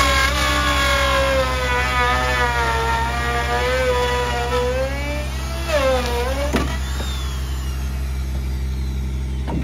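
Corded Makita electric saw cutting through OSB wall sheathing. Its motor whine wavers and sags in pitch under load, dips sharply about six seconds in, then fades out as the saw is shut off. A steady low hum runs underneath.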